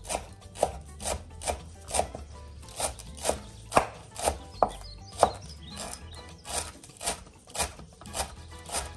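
Chef's knife chopping fresh green herbs on a bamboo cutting board: a steady run of sharp knocks of the blade on the wood, about two a second.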